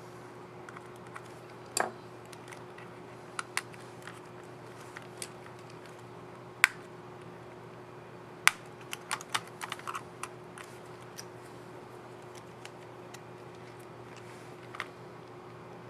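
Irregular sharp plastic clicks and snaps from a Dell Latitude 3301 laptop keycap and its scissor mechanism being handled and pressed into place on the keyboard. Two loud snaps stand out, one about two-fifths of the way in and one just past halfway, followed by a quick run of lighter clicks. A steady low hum sits underneath.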